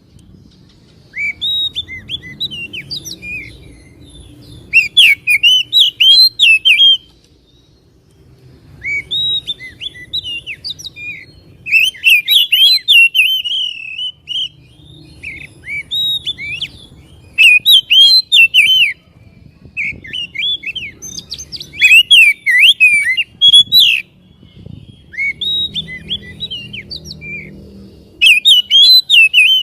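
Oriental magpie-robin singing in loud bursts of quick, sharp whistled and chattering notes. A new phrase comes every few seconds, with short pauses between phrases.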